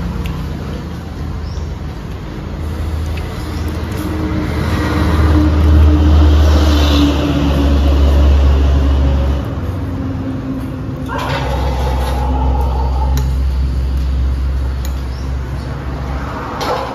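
Low rumble of a passing motor vehicle, swelling over several seconds in the middle and then falling away, over the small sounds of noodle soup being eaten with chopsticks and spoons.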